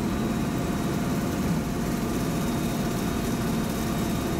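Cessna 208 Caravan's Pratt & Whitney PT6A turboprop and propeller running steadily at low power during the landing rollout, heard from inside the cockpit. It is a constant drone with a faint steady whine over it.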